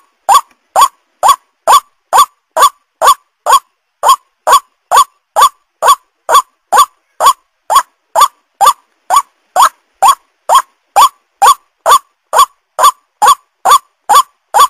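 White-breasted waterhen (ruak-ruak) call: a short, upward-sweeping, nasal note repeated evenly about twice a second.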